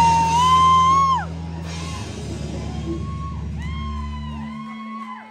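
A live rock band's song ending: a loud held high note drops away about a second in while the last chord rings on and fades out. Scattered whoops and yells rise and fall over the dying chord.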